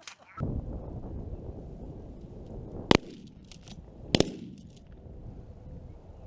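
Two shotgun shots just over a second apart, the second slightly doubled, over a steady low rumble.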